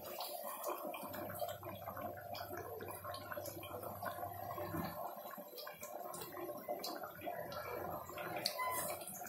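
Thick crab masala gravy bubbling in a wide aluminium pot on a gas burner, with many small irregular pops over a steady faint hum. The water has cooked off and the masala has reduced to a thick gravy.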